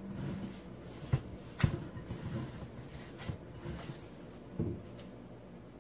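Lentil and bulgur kebbeh dough being kneaded by hand in a glass bowl: soft, irregular squishing and thudding, with two sharper knocks about a second and a second and a half in.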